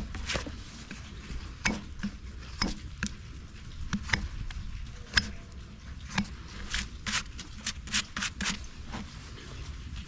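Short, irregular scraping strokes of farrier's tools on a horse's hoof during a trim, coming faster for a second or so near the end.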